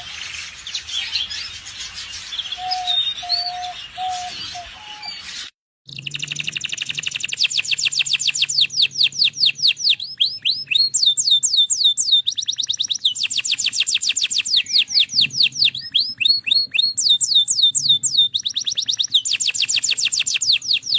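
Domestic canary singing: long, fast trills of rapidly repeated high notes in rolls, with short pauses between them. For the first five seconds or so there are scattered chirps and a few steady lower whistled notes, then the sound cuts out abruptly before the trilling begins.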